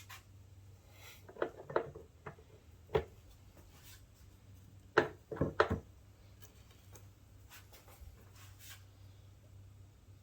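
A handful of short knocks and clicks from transaxle case parts and tools being handled during reassembly, in two clusters, one about a second and a half in and the louder one about five seconds in, over a low steady hum.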